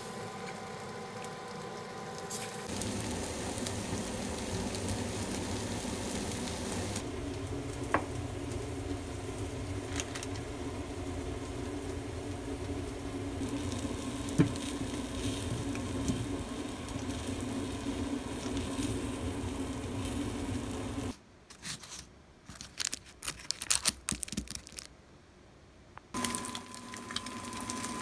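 Food sizzling in an oiled frying pan, with a few sharp clicks of utensils. Near the end comes a quieter stretch of irregular clatter and handling, then the sizzling returns.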